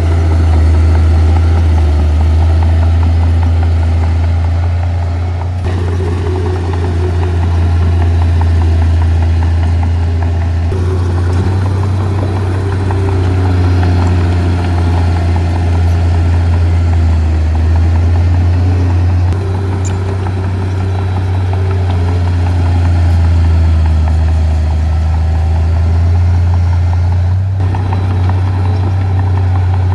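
Heavy diesel engine of earthmoving machinery running steadily with a deep hum, with a few abrupt shifts in the sound.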